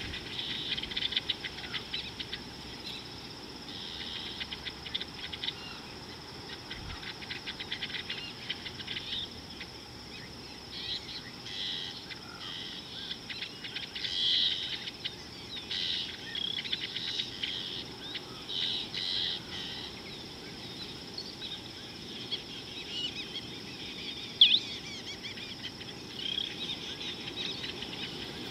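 Wild birds calling in short repeated bouts of chirps over a steady high insect drone, with one short, sharp call about three quarters of the way through standing out as the loudest sound.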